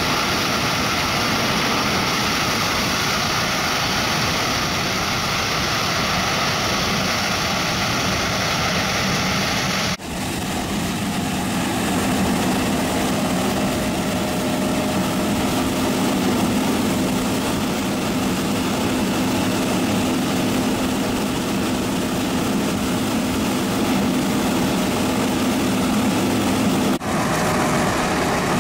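John Deere S690i combine harvester running steadily as it harvests grain maize. About ten seconds in the sound cuts abruptly to the combine unloading corn through its auger into a trailer, with a steady low hum, and near the end it cuts back to the combine harvesting.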